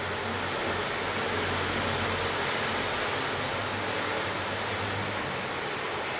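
Steady rushing background noise with a faint low hum under it. No shot, click or impact stands out.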